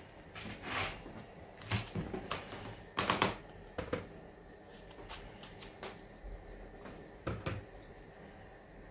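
Kitchen knife slicing a peeled plantain held in the hand, the pieces dropping into a plastic bowl: a string of irregular taps and clicks.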